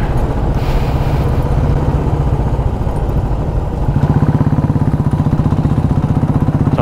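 Motorcycle engine running under way as the bike is ridden. About four seconds in, the engine note grows louder with an even, rapid pulsing beat.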